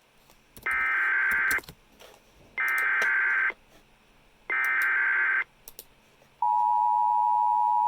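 Emergency Alert System alert: three identical one-second bursts of buzzy digital SAME header data, about two seconds apart, then the steady two-tone EAS attention signal starting about six and a half seconds in.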